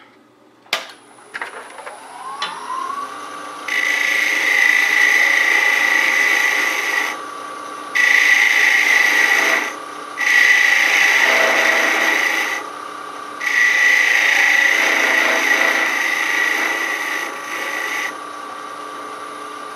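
Wood lathe spinning up with a rising whine that settles into a steady hum, then a turning tool cutting the spinning walnut handle of a spinning top in four passes, each a few seconds long, with short pauses between.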